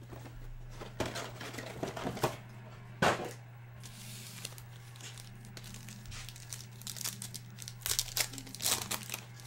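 Foil trading-card pack wrappers being torn open and crinkled, in two irregular spells of rustling with a quieter gap between them.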